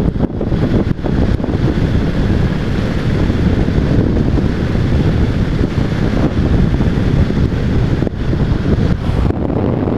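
Loud, steady wind rush buffeting the microphone of a motorcycle rider's GoPro at road speed.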